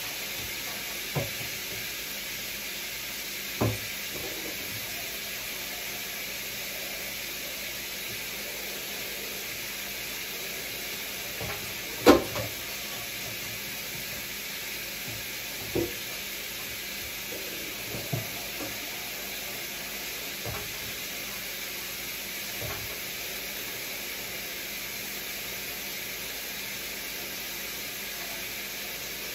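Chicken frying in a skillet, with a steady sizzle. Occasional short clinks and knocks break through, the loudest about twelve seconds in.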